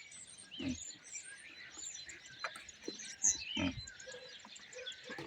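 A flock of common starlings chattering, with many overlapping short chirps and whistles. Two low thumps sound about a second in and near the middle.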